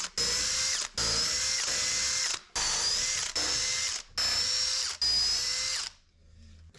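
Cordless drill boring a row of screw holes into hardwood, running in about six short bursts of a steady motor whine with brief pauses between holes. It stops near the end.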